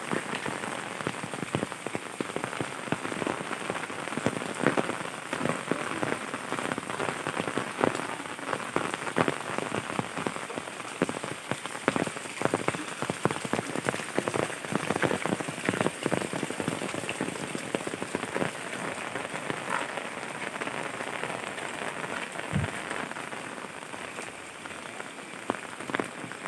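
Heavy rain falling steadily, a dense hiss dotted with many sharp taps of drops striking close surfaces.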